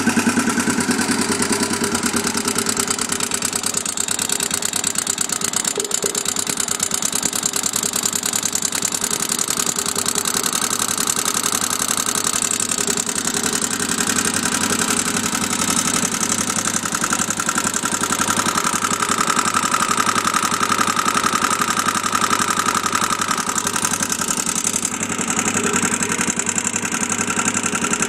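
2001 Honda 400EX ATV's single-cylinder four-stroke engine idling steadily, making the noise its owner is trying to track down.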